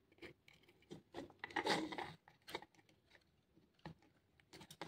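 Soldering iron and wires being worked at the metal terminals of a plastic battery case while the old wires are desoldered: faint scrapes and small clicks, the loudest a little after a second and a half in.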